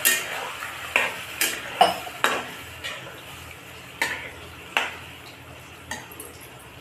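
Metal spatula stirring a watery onion-capsicum sauce in a metal kadai, clinking and scraping against the pan about once a second, over a low sizzle of the simmering sauce.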